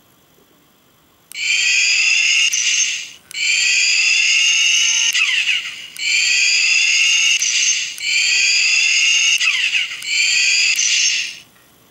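Turbo-shaped electric keychain lighter playing its built-in turbo sound effect five times in a row. Each time there is a click, then a rising turbo spool whistle, then a falling blow-off-valve whoosh.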